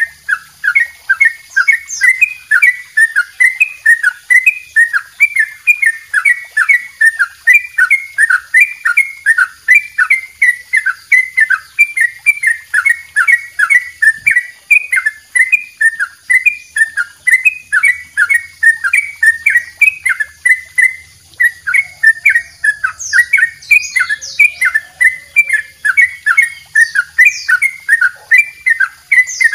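Caged yellow-vented bulbul (trucukan) singing its long 'double roll' song: an unbroken run of short, loud, repeated notes, about three to four a second.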